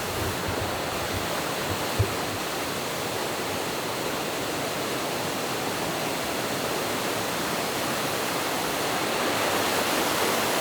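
Steady rushing of fast water in a mountain gorge, a waterfall or torrent close by. A brief low thump about two seconds in.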